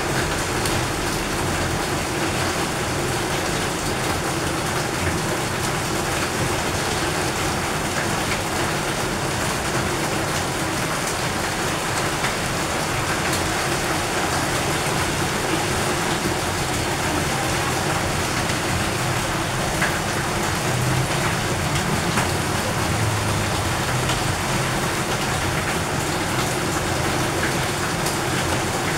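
Heavy rain falling steadily, an even hiss without a break.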